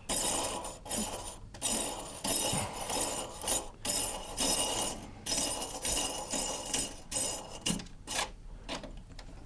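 Faucet mounting nut and bracket being spun by hand up the faucet's threaded shank, rattling and clinking with a metallic sound in runs of about a second with short breaks, quieter near the end.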